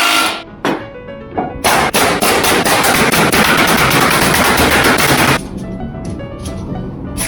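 Trim router cutting across wood in a flattening jig: a loud, dense, rattling cutting noise that starts about a second and a half in and stops abruptly about two seconds before the end, over background music.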